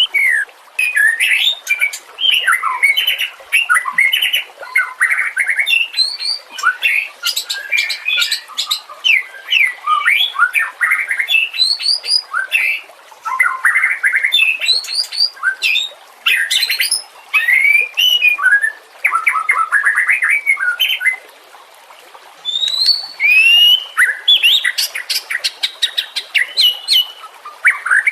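White-rumped shama singing a long, varied song of whistled glides, rapid chattering runs and sharp high notes. Its song breaks off briefly about three-quarters of the way through, then resumes.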